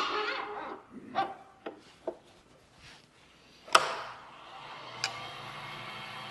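Wooden knocks and clacks from the workpiece being set in the wood lathe, with a sharp knock about four seconds in. About five seconds in the lathe starts and runs with a steady hum, the mounted piece spinning with a slight wobble.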